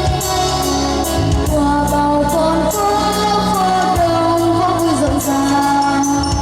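Music with a woman singing a melody over sustained bass notes and a steady beat.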